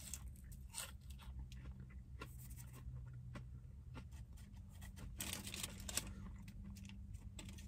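Faint chewing of a thick-cut french fry, with small soft mouth clicks, and a brief soft rustle about five seconds in.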